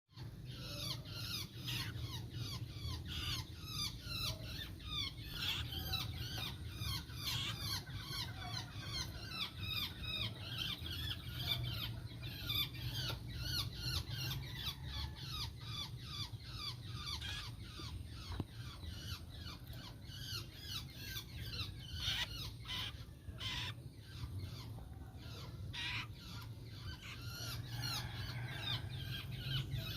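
Several long-tailed shrikes chirping and chattering without pause in rapid, overlapping high calls, over a steady low hum. A few sharp clicks come a little past the middle.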